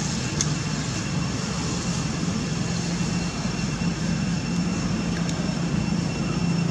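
A steady engine drone with a constant low hum, running evenly throughout.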